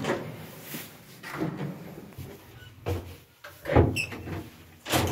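Clanks and knocks from an old elevator with a folding metal gate, several separate bangs about a second apart.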